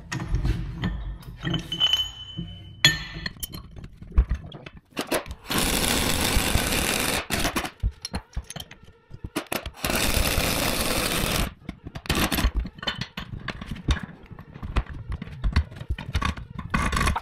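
Two bursts from a pneumatic air tool, about a second and a half each, among clanks and knocks of heavy steel parts being handled while a dozer final drive is stripped down to its planetary gears.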